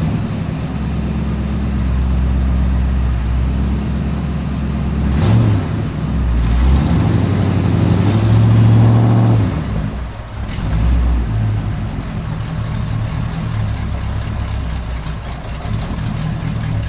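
Car engine running, revving up about six seconds in and settling back down near ten seconds, then running steadily again.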